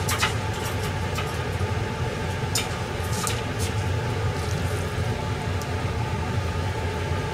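Steady low kitchen hum with a few light clicks and taps in the first few seconds.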